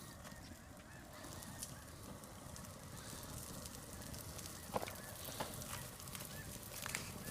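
Faint bird calls: a string of short, repeated calls over quiet outdoor background noise, with one sharp click about five seconds in.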